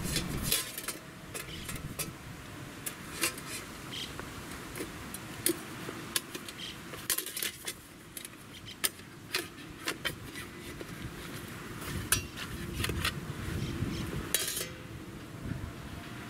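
Light metal clicks and clinks, irregular and many, as the thin wire frame of a small folding camp table is fitted to its flat top.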